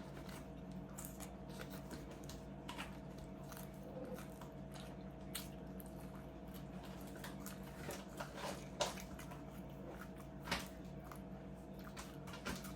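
Close-up chewing and biting of food, with scattered small crunches and two sharper crunches about nine and ten and a half seconds in.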